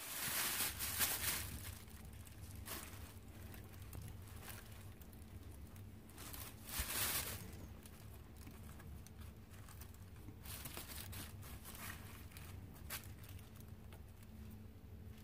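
Thin plastic grocery bag crinkling as hands open it and handle the roasted green chiles inside, loudest in the first second and a half and again about seven seconds in, with softer rustles later. A low steady hum runs underneath.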